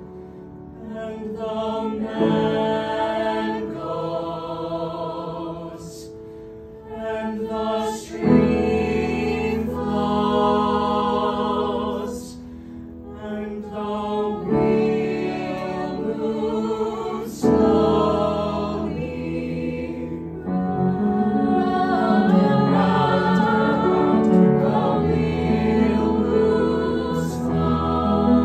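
A small mixed vocal ensemble of six voices, women and one man, singing unaccompanied in close harmony. Sustained phrases are broken by short breaths, and the singing grows louder and fuller in the last third.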